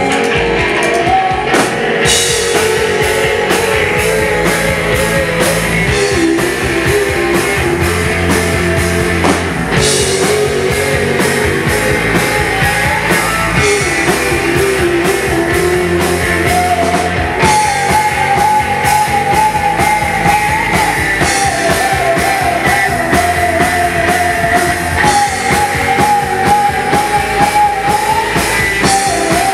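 Live rock band playing: electric guitar, keyboard and drums, with the cymbals coming in fully about two seconds in and a held melodic line riding on top in the second half.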